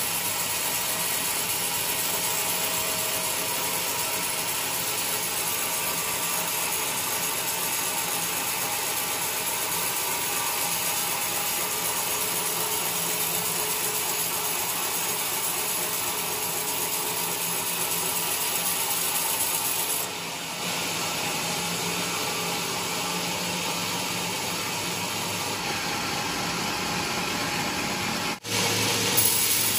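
Large sawmill cutting through a coconut log: a steady, even sawing noise, with a brief dip about twenty seconds in and a sudden short drop near the end.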